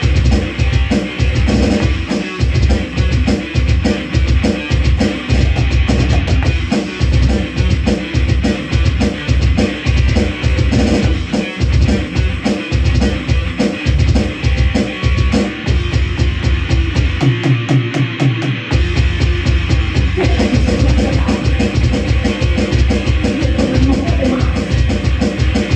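A rock band rehearsing: guitar, bass and drum kit playing loudly with a steady driving beat. About seventeen seconds in, the lowest notes drop out for a second or two before the full band comes back.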